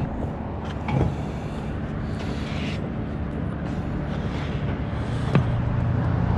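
Steady low engine rumble of a motor vehicle, with a couple of light clicks about a second in and near the end, where a steadier hum comes in.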